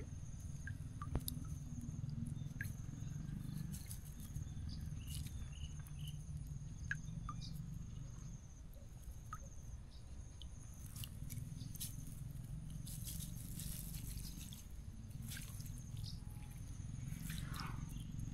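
Quiet outdoor ambience: a steady high insect trill, with scattered small clicks and rustles from a wet mesh net being picked through by hand. A few louder rustles come near the end.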